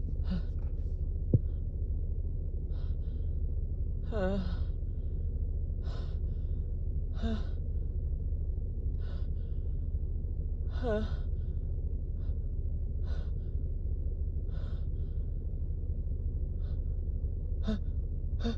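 A woman with a cold breathing in the build-up to a sneeze that doesn't come: about a dozen short, catching inhalations, three of them voiced gasps falling in pitch. A sharp click about a second in, over a steady low hum.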